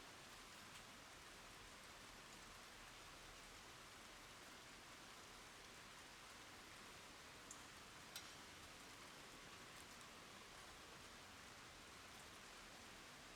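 Faint, steady rain hiss, with a few separate drops ticking sharply, the clearest about eight seconds in.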